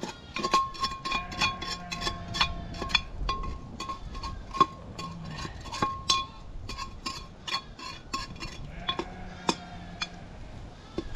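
Metal cooking utensils clinking against cookware in a rapid, irregular run of sharp, ringing clinks.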